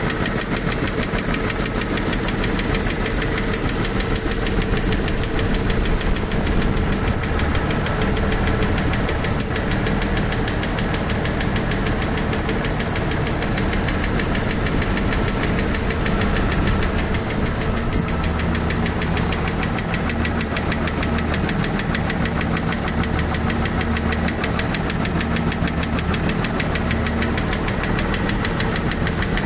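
Jeep Wrangler YJ's 4.0-litre inline-six engine running with a steady, rapid ticking. The owner doesn't think it is a lifter and has no diagnosis.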